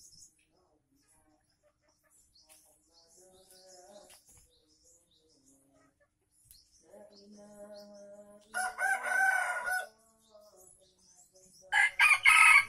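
Red junglefowl rooster crowing twice, each crow about a second long, the first about two-thirds of the way in and the second near the end. Some clucking comes just before the first crow, and faint small-bird chirps sound in the background.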